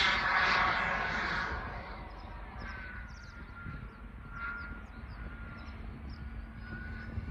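Jetcentral 90N model turbojet on a Fox glider passing high overhead. Its rushing sound fades away over the first two seconds, leaving a faint thin whine. A few faint bird calls are heard in the quiet that follows.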